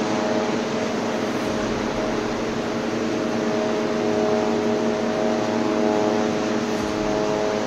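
A steady mechanical hum made of several held tones over a constant hiss, unchanging throughout, like an engine or motor running at a distance.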